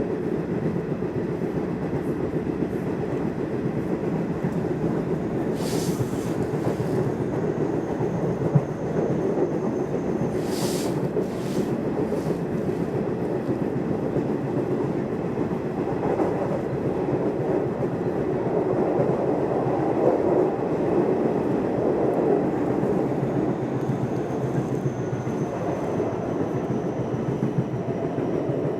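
Nishitetsu commuter train running between stations, heard from inside the car: a steady rumble of wheels on the track with clickety-clack, broken by a few brief hisses.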